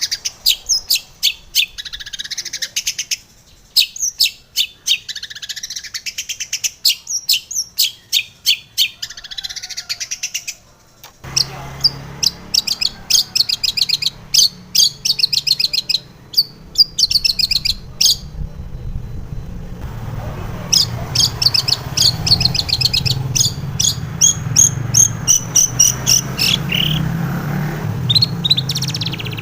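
Long-tailed shrike (cendet) singing long, rapid strings of sharp, high chirping notes with brief pauses. About eleven seconds in, a low steady hum comes in under the song and stays.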